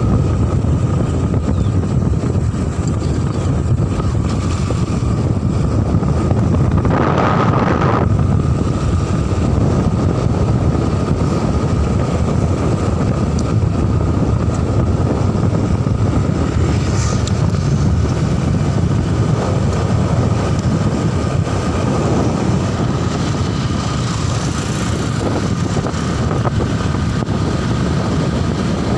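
Wind buffeting the microphone over the steady drone of a motorcycle being ridden along a road, with a brief louder rush about seven seconds in.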